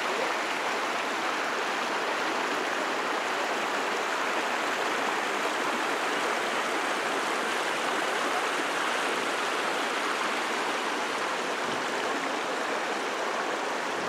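Shallow rocky river rushing and splashing over stones: a steady, even rush of water.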